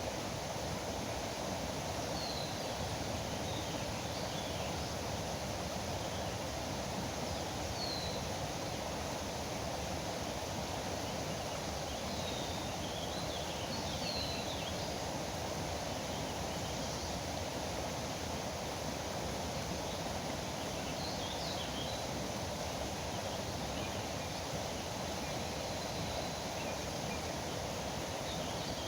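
Steady rush of river water, with a few short, high bird chirps scattered over it.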